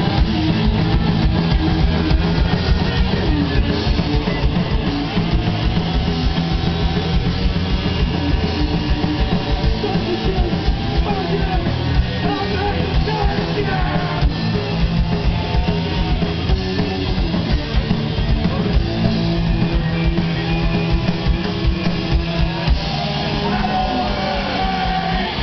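Live rock band playing loud: electric guitars, bass and drums, with a singer's voice coming through at times.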